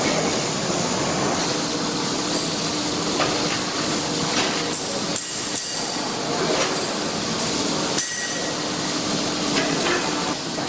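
Welding-shop noise: a steady hiss with scattered metal hammer strikes and ringing clinks.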